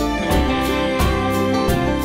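Instrumental background music with sustained notes and a steady beat, about three beats in two seconds.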